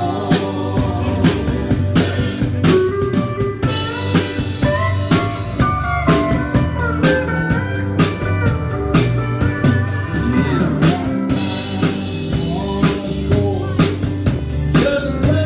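Live band playing an instrumental stretch of a gospel song, with drum kit and guitar carrying the melody.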